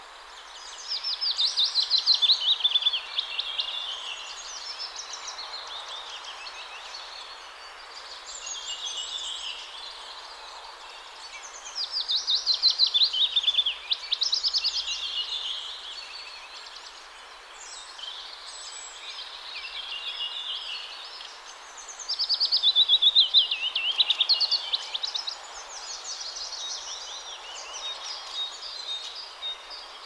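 Songbirds singing at dawn. One bird repeats a loud, fast trill that falls in pitch about every ten seconds, three times, while other birds sing more quietly in between, over a faint steady hiss of distant traffic.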